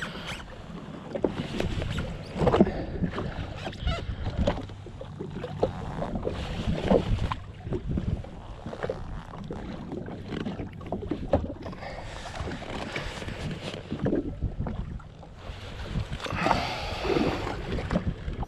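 Small waves slapping against the hull of a drifting jet ski, with irregular knocks and clicks scattered throughout.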